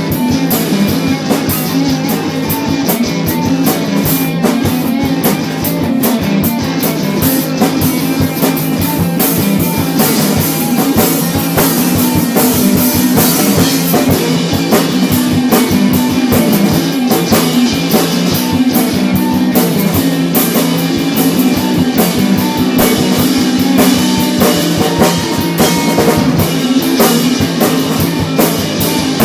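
Rock band playing: a drum kit keeps a steady beat under guitar and bass lines.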